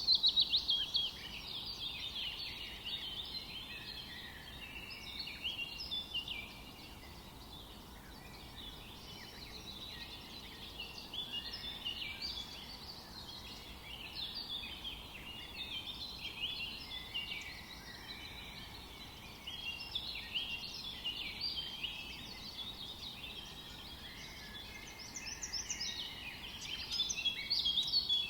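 A chorus of many small birds chirping and twittering without pause, busiest at the start and again near the end, over a faint steady background hiss.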